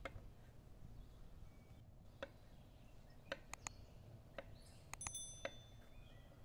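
Kitchen knife cutting peeled potatoes on a stone cutting board: about nine sharp, irregular knocks of the blade meeting the board, one near the five-second mark ringing briefly.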